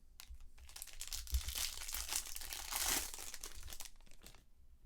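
Crinkling and tearing of a foil trading-card pack wrapper being torn open and pulled off, a dense crackle that builds about a second in and stops just before the end.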